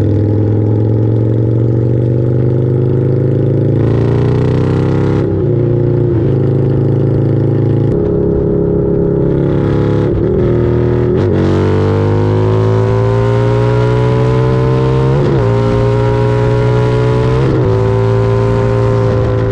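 Harley-Davidson V-Rod's V-twin engine under acceleration, its pitch climbing steadily and then dropping sharply at each gear change, several times over.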